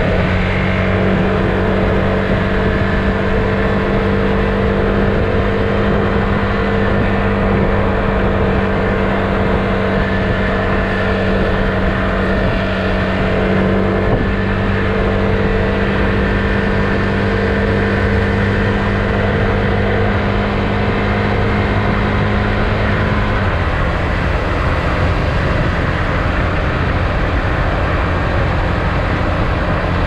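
Husqvarna Svartpilen 401's single-cylinder engine, on its stock exhaust, running under steady throttle at cruising speed, heard from the saddle. The engine note holds even, then changes abruptly about three-quarters of the way through.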